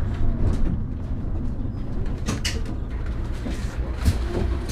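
City bus in motion, heard from inside the passenger cabin: a steady low engine and road rumble, with a few short rattles and knocks about two seconds in and again near the end.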